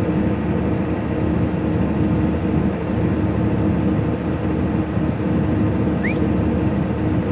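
Excavator's diesel engine idling steadily, a constant drone with a steady hum. A short rising chirp about six seconds in.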